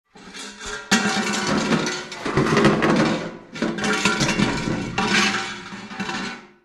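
Metal crash: sheet metal, armor pieces and metal pails clattering and banging together, with many sharp hits and ringing metallic tones. A faint rattle leads into a loud crash about a second in. The clatter keeps going, drops briefly around three and a half seconds, comes back with another crash about five seconds in, then dies away.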